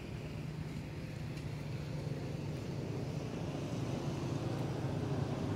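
Steady low hum of an engine running, growing slightly louder towards the end.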